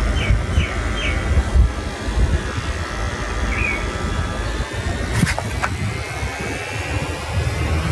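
Electric hair clippers buzzing steadily as they cut hair, over a loud low rumble. A few short high chirps come near the start and one more a little later, and two sharp clicks come about five seconds in.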